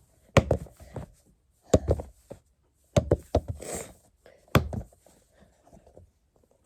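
A silicone pop-it fidget ball, made to look like a Pokéball, handled and knocked about, giving about five sharp thuds roughly a second apart.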